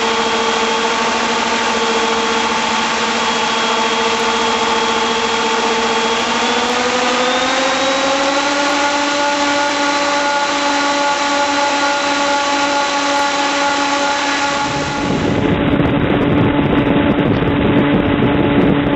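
Contra-rotating brushless outrunner motor pair (two 4Max PP 4250-600) spinning three-bladed 13.9-inch Ramoser VarioPROP propellers at high power on a test stand: a steady loud whine that rises in pitch about 7 seconds in as the throttle is opened further, then holds at around 8000 RPM. Near the end a heavier rushing noise from the propeller blast joins the whine.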